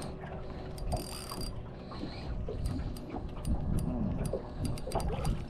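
Spinning reel being wound in with a hooked trevally on the line, its gears and handle making irregular mechanical clicks.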